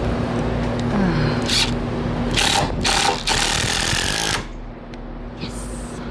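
A power drill driving screws, its motor running in a steady whine and then winding down, followed by several loud bursts of grinding as the screws bite, the longest lasting over a second.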